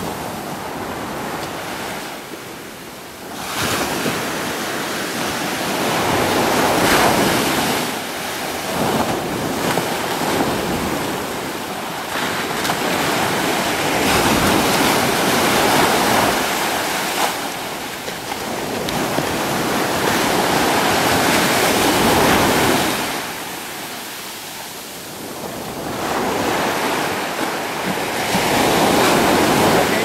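Ocean surf breaking and washing up a sandy beach, swelling and ebbing in long surges about every five to eight seconds.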